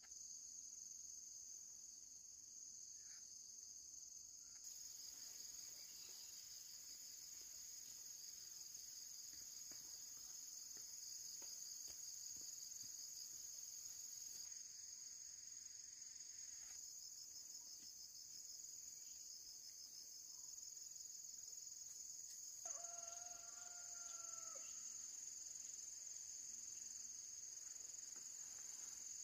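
A faint, steady, high-pitched insect chorus with a fine pulsing trill, which thickens about five seconds in. About three-quarters of the way through, a single drawn-out animal call of about two seconds sounds over it.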